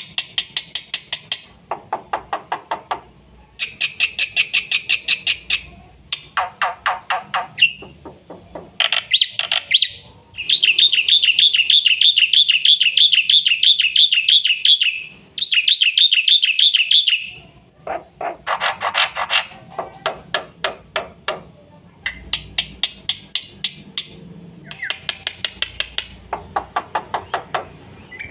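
Black-winged myna (jalak putih) singing a fast, varied song of quick runs of repeated notes, some high and some lower, with short pauses between phrases. Near the middle it holds a long, fast trill for about seven seconds.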